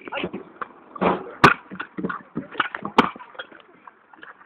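Kick scooter rolling over asphalt, its wheels making a rough rumble, with two sharp clacks from the scooter about a second and a half apart.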